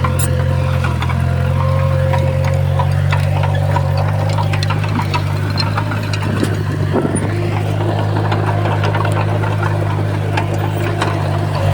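Heavy diesel engine of earthmoving equipment running steadily with a low drone, with scattered light clicks and clanks.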